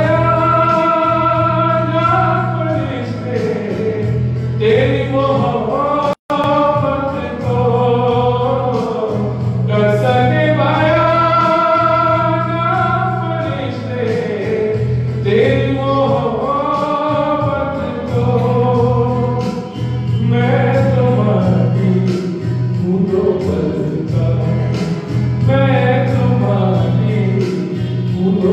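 A man singing a Hindi Christian song with electronic keyboard accompaniment, a sung melody over sustained bass notes. The sound cuts out for an instant about six seconds in.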